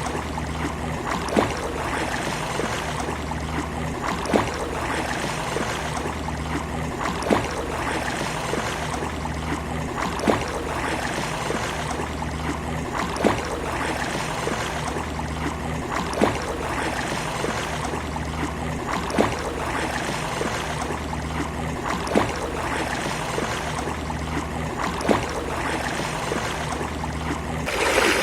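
Sea water washing steadily on a beach, with a sharp splash or slap about every three seconds over a low steady hum. A brief louder surge comes at the very end.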